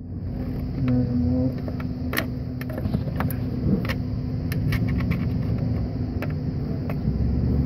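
Scattered light metallic clicks of a T30 Torx L-key working a bolt on the auxiliary water pump bracket, over a steady low rumble.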